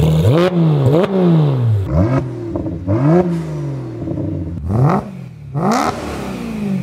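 Sports car engines revved in a quick series of about six blips, each rising sharply in pitch and then falling away, cut together from a Porsche 991.1 GT3 RS, a BMW 1M and a BMW E92 M3.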